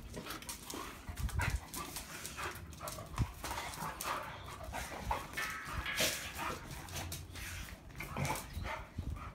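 Two dogs play-fighting: short, irregular dog noises over scuffling and sharp clicks of claws on brick pavers.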